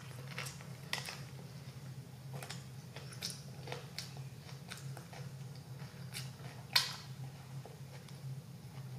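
Close-miked mouth sounds of a person biting into a Whopper Jr. burger and chewing it: scattered soft wet clicks and smacks, with one louder click near seven seconds in. A steady low hum runs underneath.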